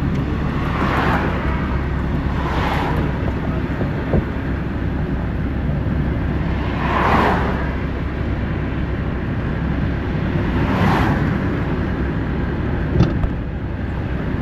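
Car driving along a road: steady engine and tyre rumble that swells briefly four times, with two short sharp clicks.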